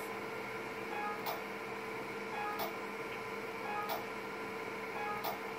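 Lumenis M22 IPL machine firing its handpiece four times, about 1.3 seconds apart. Each pulse is a sharp click with a brief beep, over the machine's steady hum.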